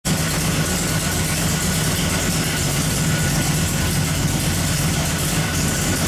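Carbureted 540 cubic-inch V8 running steadily at idle on an engine dyno, its headers exhausting through the dyno cell's exhaust pipes.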